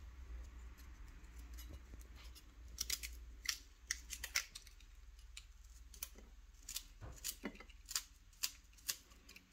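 Kitchen knife cutting garlic cloves held in the hand: faint, irregular sharp clicks and snips as the blade cuts through, with pieces dropping into a ceramic dish, over a low steady hum.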